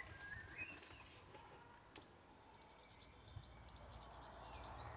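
Faint garden ambience: quick high-pitched chirping trills in the second half, after a few short chirps at the start, with a single faint click about two seconds in.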